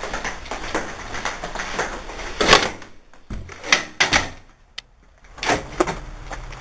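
A metal exit door with a push bar being pushed open. There are loud clunks about two and a half, three and a half and four seconds in, and a sharp latch click near five seconds.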